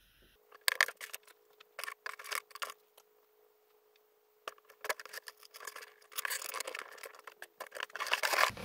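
Sharp snips and clicks as the excess tails of nylon zip ties are cut off. These are followed by a longer stretch of rustling and rubbing as hands move the power cables across a cardboard box.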